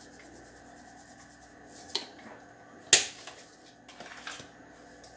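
A few short, sharp clicks and knocks from a small glass jar of dried herbs being handled over a stainless steel bowl and counter, the loudest about three seconds in.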